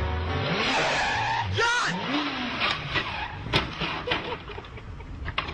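A skid lasting about a second, followed by a short shout and then a run of scattered knocks and clatter, typical of a motorcycle going down.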